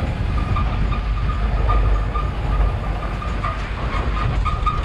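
A small pickup truck driving along a rough road, heard from its open cargo bed: a steady low rumble from the engine and road, with a thin steady high whine over it.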